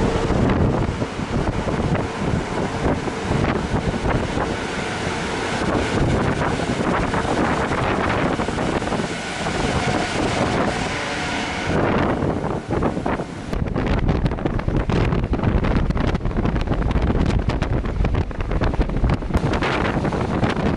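Wind buffeting the built-in microphone of a Sony Action Cam HDR-AS30V on a ship's open deck: a dense steady rush of air. About twelve seconds in, the high hiss thins and low, gusty rumbles and knocks take over.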